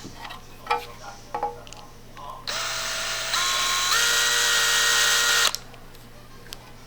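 A few light clicks, then a small electric power tool motor runs for about three seconds. Its whine steps up in pitch twice as it speeds up, and then it cuts off suddenly.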